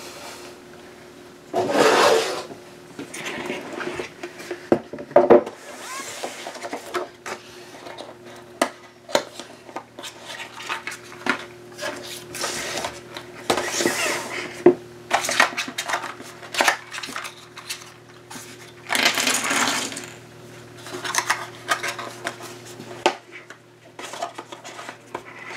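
Cardboard jigsaw puzzle pieces handled and shuffled on a table, with many small clicks and several rustling bursts. A steady low hum sits underneath and stops near the end.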